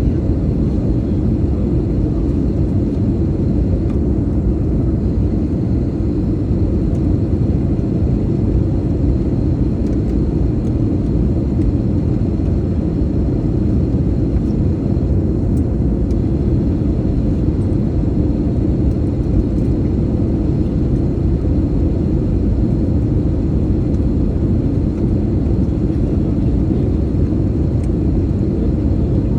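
Steady cabin noise of an airliner in flight during descent: a constant low rumble of engines and airflow heard from inside the passenger cabin.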